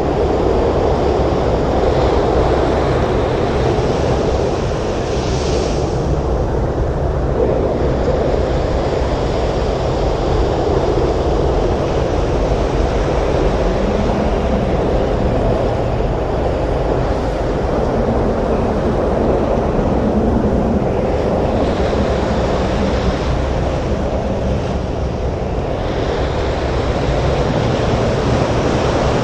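Storm surf: waves breaking on a beach in strong wind, a steady, unbroken rushing noise. The higher hiss swells twice, about five seconds in and again past the twenty-second mark.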